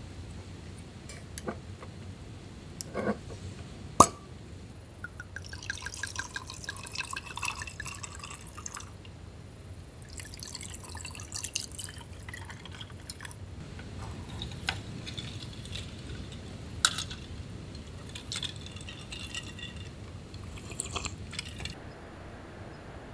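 Wine bottle being uncorked with a lever corkscrew, the cork coming free with a sharp pop about four seconds in. Wine then glugs and gurgles out of the bottle into cups in several separate pours.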